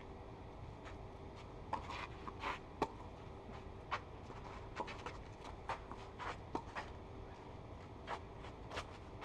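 A point being played on a clay tennis court: scattered sharp clicks and short scrapes from tennis shoes sliding and stepping on the clay and racket strikes on the ball, over a faint steady hum.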